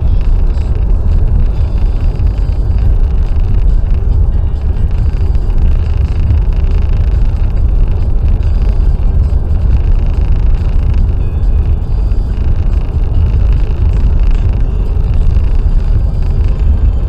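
Car driving at motorway speed: a steady, loud low rumble of tyres, engine and wind, unchanging throughout.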